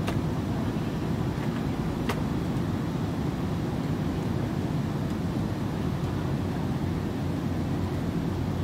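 Steady low rumble of a twin-engine widebody jet airliner's engines as it rolls down the runway.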